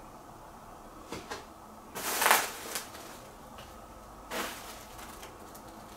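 A few short knocks and rustles, like a cupboard or door being handled, over a steady low hiss; the loudest comes about two seconds in and another a couple of seconds later.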